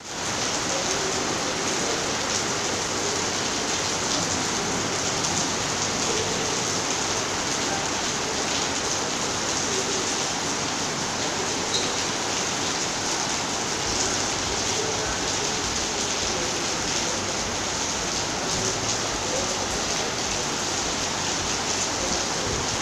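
Heavy rain pouring down in a steady, unbroken hiss, mixed with the rush of floodwater.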